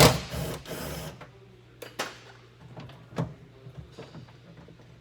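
Car door hardware being worked loose by hand, a loud scraping rattle for about a second, then scattered clicks and knocks of plastic and metal parts.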